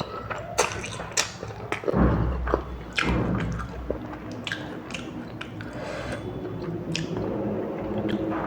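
A person chewing food, with many short sharp clicks and mouth noises and a heavier low thud about two seconds in.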